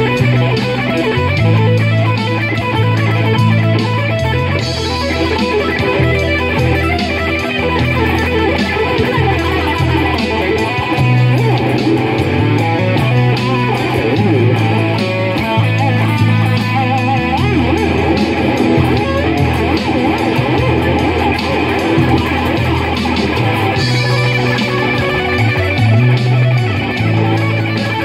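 Stratocaster-style electric guitar improvising a blues lead, with bent notes, over a backing track whose bass line moves every couple of seconds.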